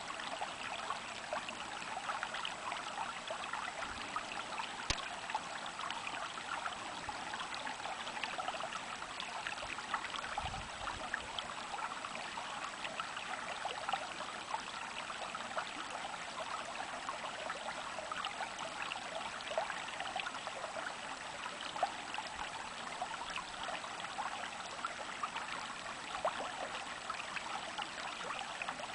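A small stream of water trickling and babbling steadily, with a dense patter of tiny splashes.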